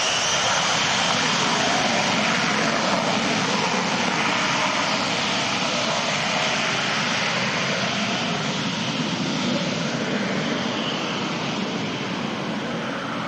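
Boeing 707 jet engines at high power as the four-engined airliner rolls away down the runway: a high whine rising at the very start, under a dense steady roar that fades a little near the end.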